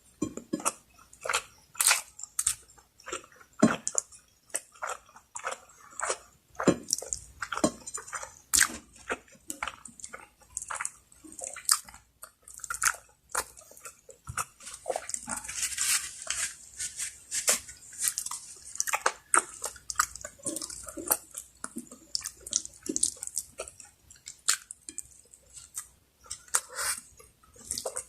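Close-miked eating: wet chewing, lip smacks and mouth clicks come in quick irregular succession as a spicy Bicol Express meal is eaten. About halfway through there is a longer airy, hissing stretch.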